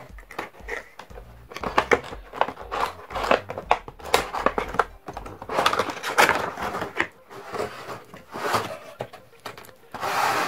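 A cardboard Funko Pop window box and its clear plastic insert being handled and opened by hand: irregular rustling, scraping and crinkling with light knocks and clicks as the figure is slid out in its plastic tray.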